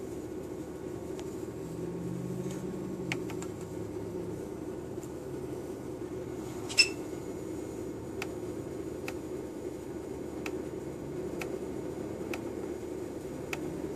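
Control-panel buttons of a TallyGenicom T6215 dot-matrix printer clicking as its test menu is stepped through: a sharp click about three seconds in, a louder one about halfway, then roughly one click a second toward the end, over a steady low hum.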